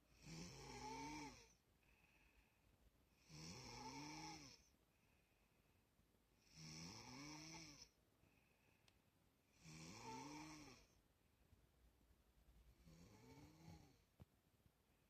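A sleeping person snoring: five long snores about three seconds apart, each rising and then falling in pitch, the last one weaker. A faint high whistle comes in the pauses between them.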